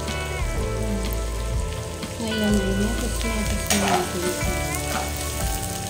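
Onions, garlic, ginger and turmeric sizzling in butter and oil in an aluminium wok, stirred with a spatula that knocks sharply against the pan about two-thirds of the way through.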